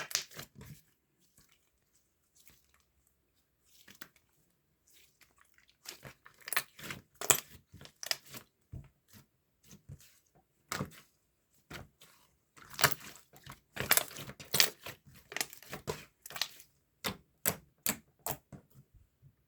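Slime being worked by hand, giving irregular sharp clicks and pops as it is pressed and folded. Mostly quiet for the first few seconds, then dense clusters of pops.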